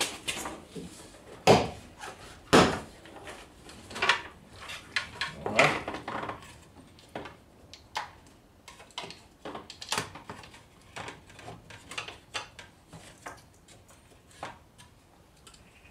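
Opel Vectra B door trim panel being pried off: a string of irregular sharp plastic snaps and clicks as its push-pin clips come free, the two loudest about a second and a half and two and a half seconds in, then lighter clicks and rattles.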